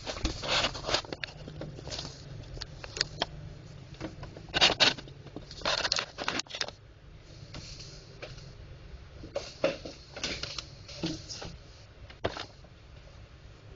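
Laser printer drum unit handled by hand on a table: irregular plastic clicks and knocks with short rustling scrapes, loudest a little under halfway and again around the middle.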